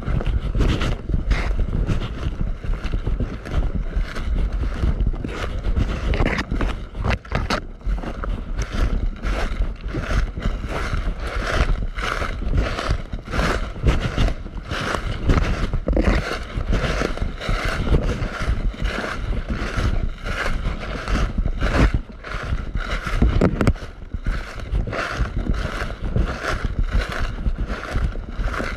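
Footsteps of a person walking steadily, with clothing rubbing against the covered camera on each step, over a low rumble of wind and handling on the microphone.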